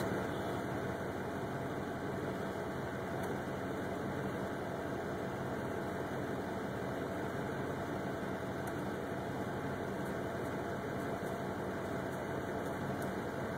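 Steady hum of a parked truck's engine idling, heard from inside the cab.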